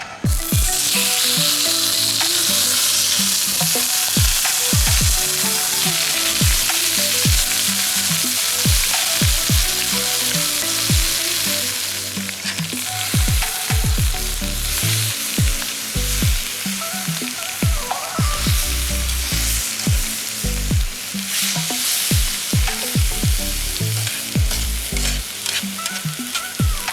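Food sizzling as it fries in a pan, a steady hiss throughout, with background music underneath.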